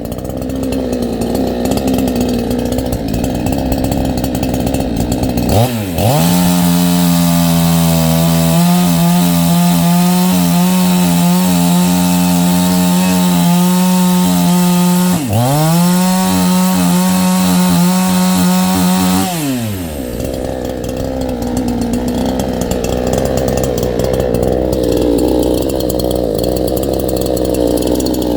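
CMA 6800 68cc two-stroke chainsaw idling, then revved up about six seconds in and held at high speed for over ten seconds. It dips briefly once and picks straight back up, then drops back to idle near the twenty-second mark.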